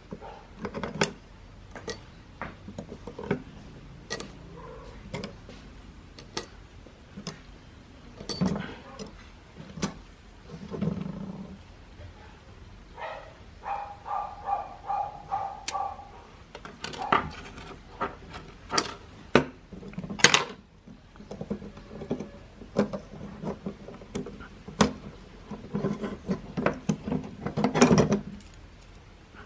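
Small metal parts and tools clicking and knocking at irregular intervals while a mechanical alarm clock is worked on by hand. Near the middle comes a brief tone, repeated in quick pulses.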